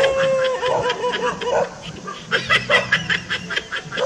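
Rapid, evenly spaced laughter, about five bursts a second, over a held tone that slides down in pitch about half a second in.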